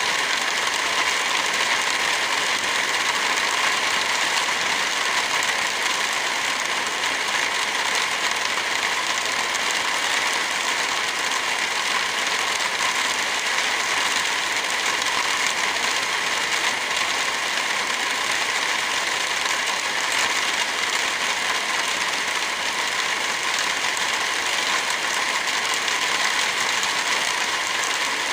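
Heavy rain falling steadily: a dense, even hiss with no rumble underneath.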